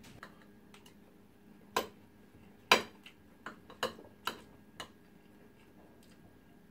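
Metal fork clinking and scraping against a plate of rice and stew: about half a dozen sharp clicks, the loudest near the middle.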